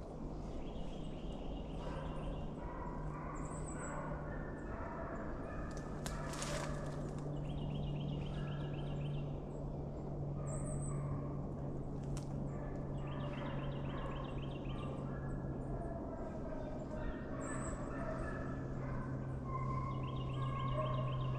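A pack of deer hounds baying in the distance as they run, their drawn-out voices overlapping, over a steady low hum. Birds chirp and trill now and then.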